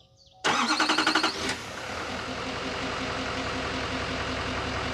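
A vehicle engine: a loud, rapidly pulsing burst starts about half a second in and lasts about a second, then settles into a steady idle.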